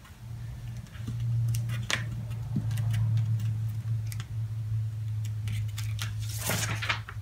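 Paper backing and transfer tape of a vinyl decal being peeled apart and handled, with faint ticks and a short louder crinkle of paper near the end, over a steady low hum.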